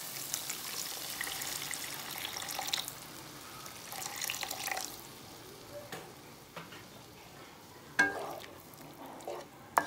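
Water pouring from a jug into a non-stick kadai of onion-tomato masala, a steady splashing for about five seconds. After it, a wooden spatula knocks against the pan a few times as the gravy is stirred.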